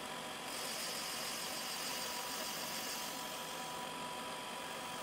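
OD (cylindrical) grinder running steadily, its wheel grinding the outside of a hardened ball-bearing inner race under coolant. A high grinding hiss comes in about half a second in and fades out around three seconds in.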